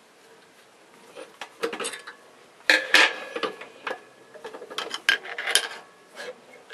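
Irregular metal clicks, clanks and short scrapes of a socket tool and the steel fork cap being worked onto a Yamaha NMAX front fork tube against its spring, with the loudest knocks about three seconds in and again a little after five seconds.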